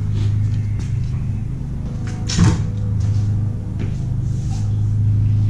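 A length of PVC pipe being handled at a workbench: one sharp knock about two and a half seconds in and a few lighter clicks, over a steady low hum.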